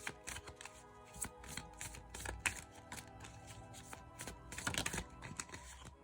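A tarot deck being shuffled and handled by hand: a run of quick, soft card clicks, denser a little before the end, over quiet background music.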